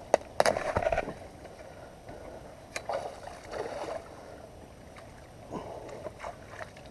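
Water splashing and sloshing as a landing net is worked in shallow creek water, with scattered knocks and rustles of handling close to the microphone. The loudest burst comes about half a second in.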